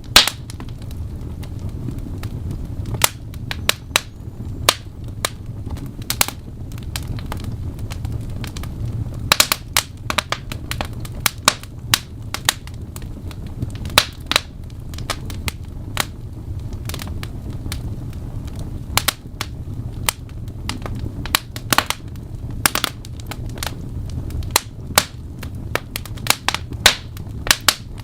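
Wood fire burning in a fireplace: a steady low rumble of flames with frequent irregular crackles and sharp pops.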